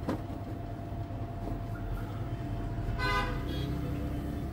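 Steady low rumble of passing traffic, with a short vehicle horn toot about three seconds in.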